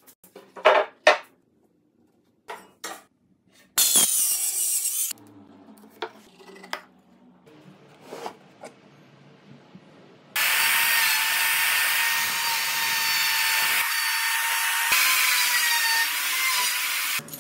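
A few sharp wooden knocks and a short loud burst of noise, then quieter rubbing and clicks as a plywood drawer is pulled open. From about ten seconds in, a handheld router runs steadily with a high whine as it cuts wood, stopping just before the end.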